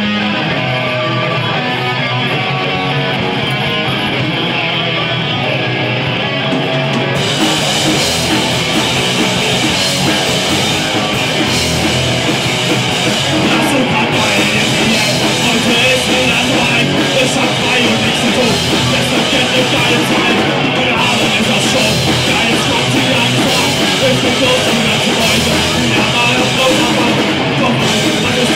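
Live rock band playing loud distorted electric guitars. For the first seven seconds or so the guitars play without drums, then the drum kit comes in with cymbals and the full band plays on.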